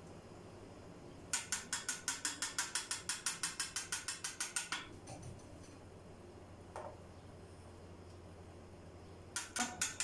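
A fast run of sharp ratchet-like mechanical clicks, about eight a second, lasting some three and a half seconds, then one lone click, with the clicking starting again near the end; a low steady hum runs underneath.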